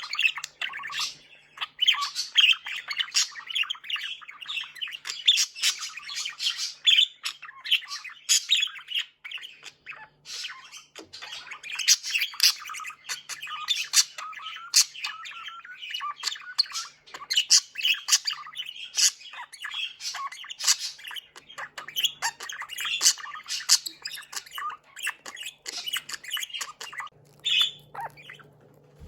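Pet budgerigars chattering: a continuous stream of quick chirps, squawks and clicky warble notes, thinning out briefly about a third of the way in.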